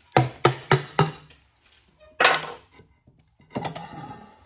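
Hammer blows on the cast-iron tail housing of an NV4500 five-speed manual transmission: four quick strikes, then a heavier one about two seconds in. Near the end comes a rattling metal scrape as the loosened housing is pulled off the shaft.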